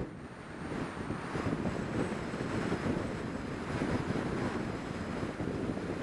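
Car driving along: steady engine and road noise with some wind on the microphone.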